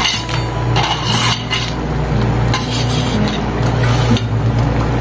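Perforated steel spoon scraping and clinking against a steel plate as fried bori and chopped coriander leaves are pushed off into a pan of curry. The scraping is loudest at the very start and again about a second in.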